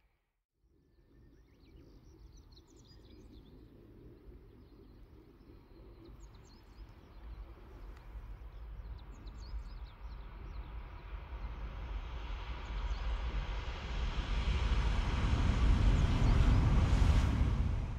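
A Kyushu Shinkansen bullet train approaches and passes at speed. Its rushing noise builds steadily for about fifteen seconds to a loud peak as it goes by, then cuts off suddenly near the end. Faint bird chirps can be heard in the first half.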